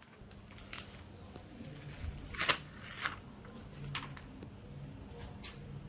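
Scattered light crinkling and clicking of newspaper masking and masking tape being handled, the loudest about two and a half seconds in, over a faint steady hum.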